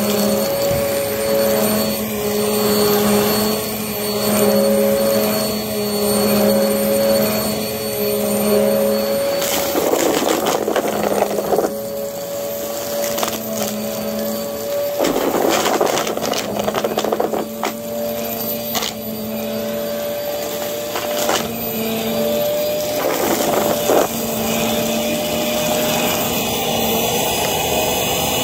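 Small white-and-blue upright vacuum cleaner running while pushed back and forth over carpet, its steady motor whine swelling and fading about every two seconds. Short bursts of rougher noise cut in about ten, fifteen and twenty-three seconds in.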